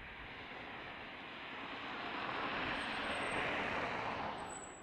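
Airbus A319-132's IAE V2500 turbofan engines at takeoff thrust as the jet lifts off and climbs out: a steady jet rumble that swells louder over about three seconds, then starts to fade near the end.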